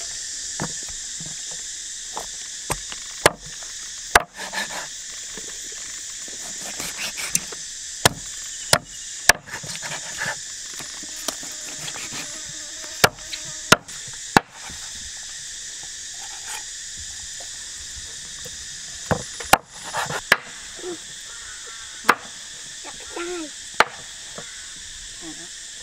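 Chopping: about a dozen sharp, separate strikes at irregular intervals, often in groups of two or three, over a steady high drone of insects.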